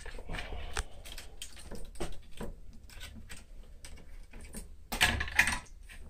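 Small irregular clicks and taps of tools and wire being handled on a wooden workbench, with a louder rustling scrape about five seconds in.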